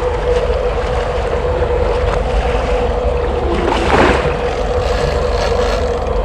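A boat's motor running steadily with a constant hum, over wind and water rushing past, with a brief louder rush about four seconds in.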